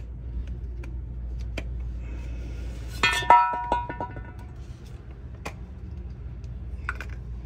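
A sharp metallic clank about three seconds in that rings briefly in several tones, with a few lighter clicks of metal tools and parts being handled, over a steady low hum.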